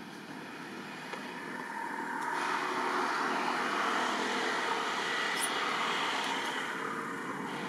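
A motor vehicle passing by: a steady engine and road noise that swells over the first few seconds and eases off near the end.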